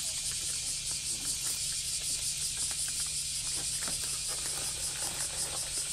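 Chorus of cicadas, a steady high-pitched shrilling drone, with scattered faint clicks from cats eating at their feed.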